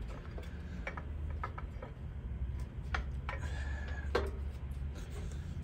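A few scattered small clicks and ticks as wiring and metal parts are handled, with a battery cable being fed back under a motorcycle oil tank. A low steady hum runs underneath.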